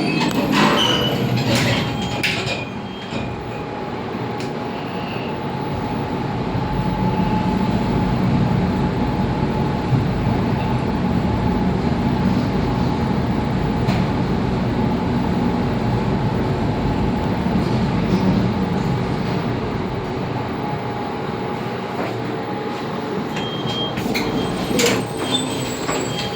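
Passenger lift car travelling between floors: a steady rumble with a faint hum from the running lift. There are clicks near the start and again near the end.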